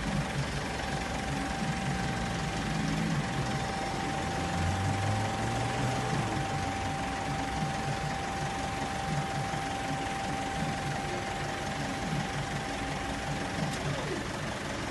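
A vehicle engine idling steadily. Over it a single steady high tone holds, then drops quickly in pitch near the end.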